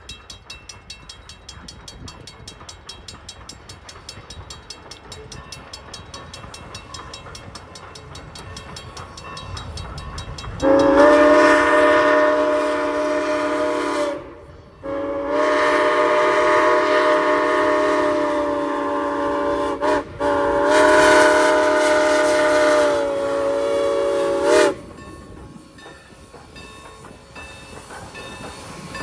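Norfolk & Western No. 475, a 4-8-0 steam locomotive, approaching with a quiet running sound and faint regular ticking, then sounding its chime steam whistle in three long blasts of about four to five seconds each, the last two only barely separated.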